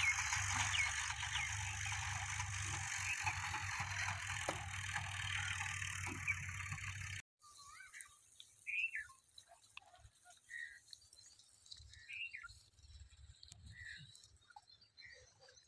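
A tractor engine running in the distance, a steady low hum under an even hiss. About seven seconds in it cuts off abruptly, leaving near silence with a few faint, short high chirps.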